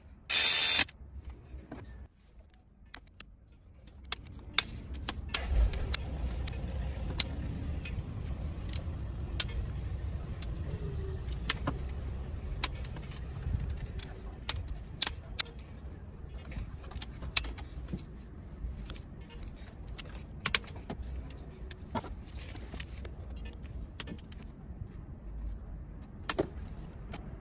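A cordless electric ratchet runs briefly at the very start on a bolt in an engine's cylinder head. After a quiet spell, sharp metal clicks and clinks of tools and parts being handled come scattered throughout, over a low steady rumble that sets in about four seconds in.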